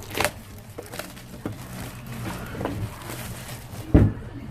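Handling noises from objects being moved and set down during an unboxing: a few sharp clicks and knocks, and a loud thump about four seconds in, over a steady low hum.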